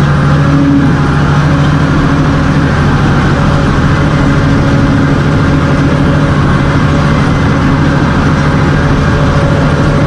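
Bulldozer's diesel engine running loud and steady, with no change in pitch.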